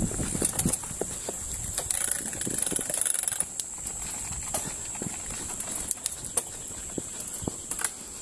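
Mountain bike rattling and clattering over a bumpy dirt singletrack: irregular knocks and clicks from the bike's chain and frame over a low rumble of tyres and wind, with a brief stretch of faster, denser clicking about two seconds in.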